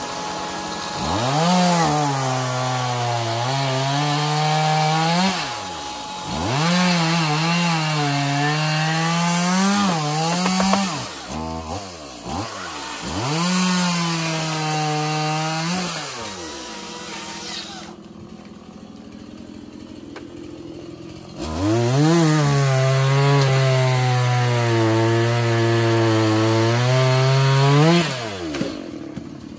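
Chainsaw cutting through a fallen tree trunk in repeated runs of a few seconds, its motor winding up at the start of each cut, holding under load and winding down at the end. There are a few short blips around the middle and a quieter stretch of a few seconds before the last long run.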